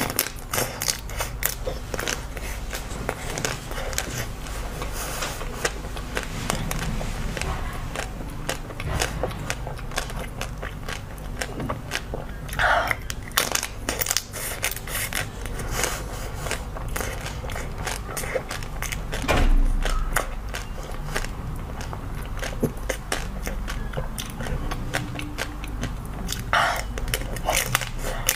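Eating frozen chocolate-coated bars: bites cracking the hard frozen chocolate shell, then chewing and wet mouth sounds, with many small crackles throughout.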